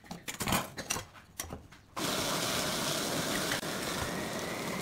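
Short scrapes and taps of a pencil and steel rule working along a strip of wood. About two seconds in, a steady whirring machine noise with a faint, slowly rising whine starts suddenly and becomes the loudest sound.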